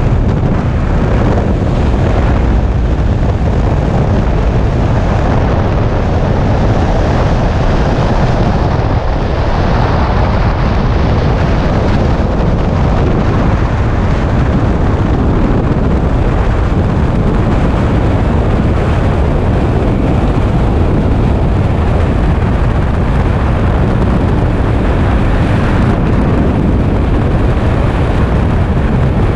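Freefall wind rushing over a skydiver's camera microphone: a loud, steady rush of noise, heaviest in the low end.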